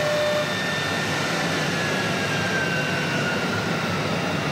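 CC-M1325AC3 multi-spindle CNC wood router running: a steady machine whine and hiss, with one tone that falls slowly in pitch through the middle.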